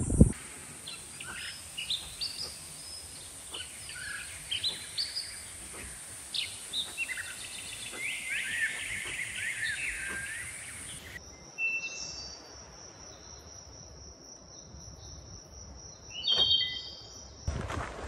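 Outdoor nature ambience: birds chirping and calling in short, quick notes and glides over a steady high-pitched drone. About eleven seconds in the ambience changes abruptly to a quieter bed with a thin steady high tone, and a few more bird calls come near the end.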